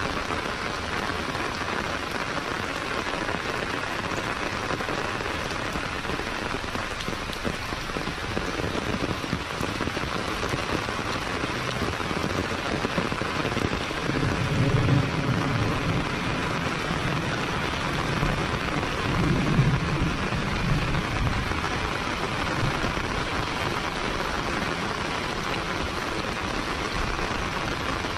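Heavy rain falling steadily on a paved lane and surrounding plants, an even hiss. Two low rumbles of thunder come about halfway through, the second some five seconds after the first.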